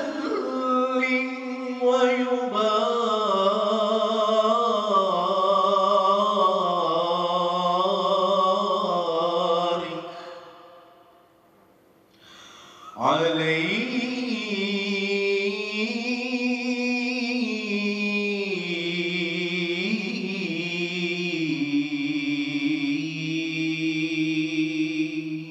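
A solo male voice chanting, unaccompanied, in two long ornamented phrases with slowly bending pitch. The first phrase ends about ten seconds in, and the second begins about three seconds later.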